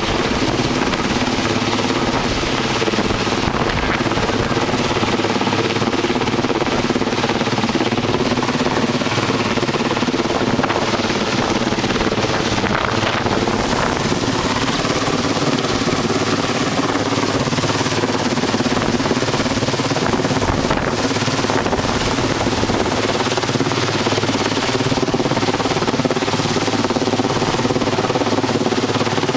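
Large helicopter hovering low overhead: a loud, steady rotor beat over a constant engine drone.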